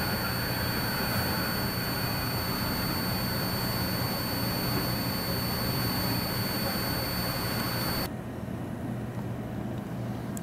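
Cab noise inside a JFK AirTrain people-mover car at a station: a steady hum with a thin high whine over it. About eight seconds in, it cuts off suddenly to the quieter, duller hum of a large airport terminal hall.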